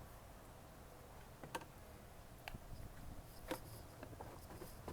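A few faint, sharp clicks and light knocks, three of them spaced about a second apart, over a low, steady background rumble.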